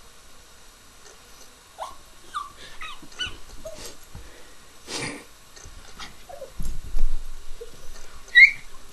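Small terrier whining and yipping in excitement at the prospect of going for a ride: a series of short high cries that rise and fall in pitch, the sharpest near the end. Dull thumps and rustling come in between as the dog scrambles about on the leather recliner.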